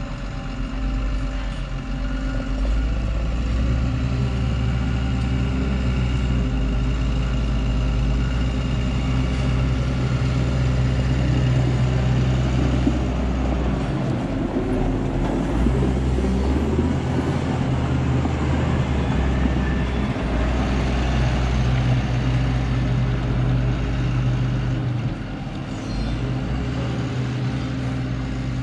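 New Holland W170 wheel loader's diesel engine running under load as it lifts and carries a stack of square hay bales. The engine note steps up a few seconds in, holds steady, and drops back near the end.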